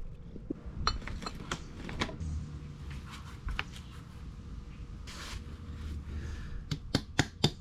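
Hand tools clinking and clattering against metal engine parts. Near the end this gives way to a run of quick, even hammer taps, about four or five a second.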